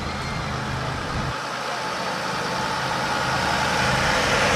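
Mercedes-Benz Sprinter ambulance van's engine running as it drives slowly closer, growing steadily louder, with no siren.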